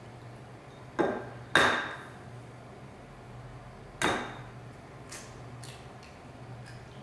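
Eggs being cracked on the rim of a bowl: three sharp knocks, two close together about a second in and one about four seconds in, each with a short ring, then a few lighter clicks.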